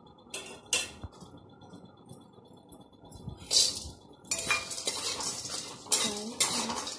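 Spatula clinking against a kadhai a few times, then from about four seconds in scraping and stirring as star anise roasts in a little oil, with repeated clinks against the pan.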